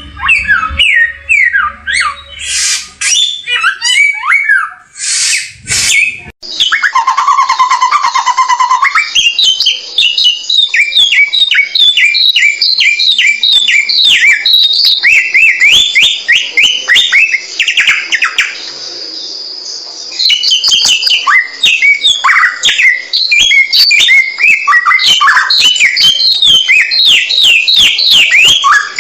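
A samyong songbird singing a fast, unbroken run of short, sharp downslurred chirps. The song eases briefly about two-thirds of the way through, then picks up again. The sound changes abruptly about six seconds in, as at a splice in the recording.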